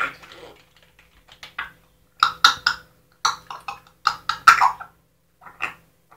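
African grey parrot chattering: short clicks and clipped, syllable-like calls in several quick runs, with brief pauses between them.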